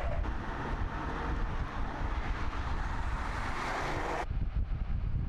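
A car driving along the road with tyre and engine noise that grows louder, over heavy wind rumble on the microphone. The car noise cuts off abruptly about four seconds in, leaving the wind.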